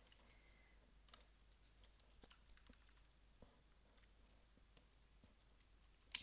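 Faint, irregular clicks of keys on a computer keyboard as an email address is typed.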